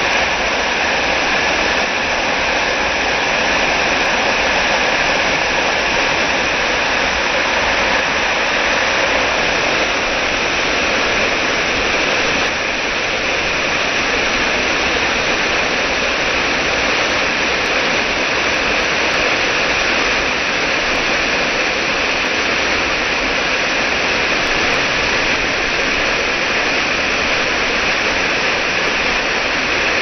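Waterfall cascading over rocks: a steady, loud rush of falling and splashing water.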